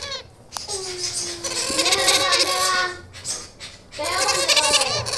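Month-old blue-headed parrot chicks calling for food with repeated, bleating begging calls, in two bouts with a short pause near the three-second mark.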